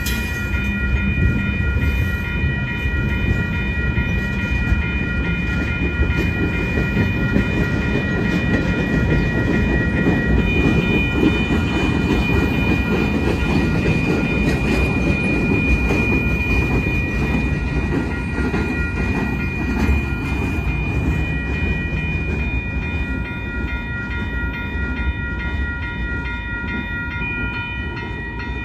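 Freight train cars rolling past on the rails: a steady rumble and clatter of wheels over the track, easing a little near the end. Steady high ringing tones from the grade-crossing bell sound over the train throughout.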